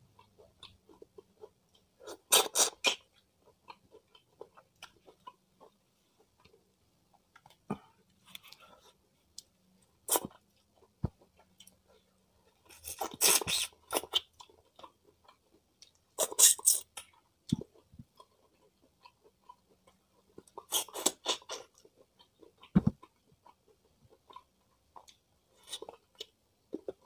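Close-miked chewing of crunchy food. About four loud crunching bites are spread through, with quieter chewing and mouth clicks between them.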